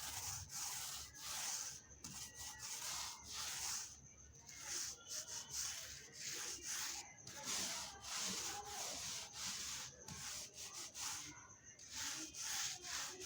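Repeated rubbing strokes on the wooden bass speaker cabinet as primer is worked onto the surface, coming in irregular scratchy strokes with short pauses between them.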